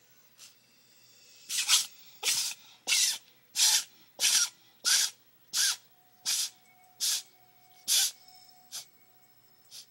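Tonkinese cat sneezing in a rapid fit, about ten sharp sneezes roughly one every 0.7 seconds, with a few fainter ones before and after. The sneezing is a sign of a cat cold.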